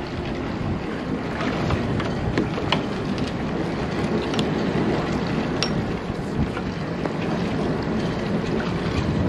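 Steady wind noise on the microphone with water moving along the hull of a motor yacht in a canal lock, and a few light clicks.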